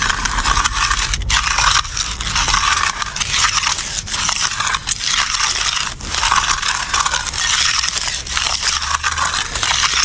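Marshalltown steel edging trowel scraping along the edge of a wet concrete slab, a continuous rasping in long strokes with a few brief breaks, as the slab edge is formed and finished.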